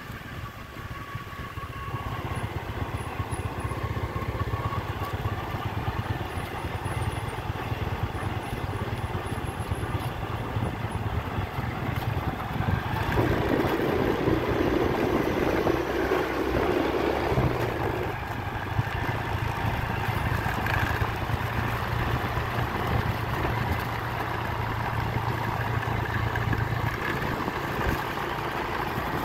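Honda motor scooter's engine running steadily while riding, with wind and road noise. A louder rushing noise swells for about five seconds midway, then eases.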